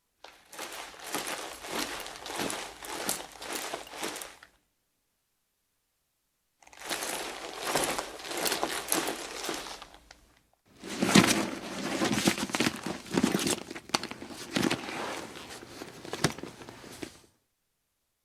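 Pleather handbag with a metal chain strap being handled, its material rustling and creaking while the chain clicks and clinks, in three separate takes with total silence between them. The third take opens with a sharp knock as the bag is set down hard.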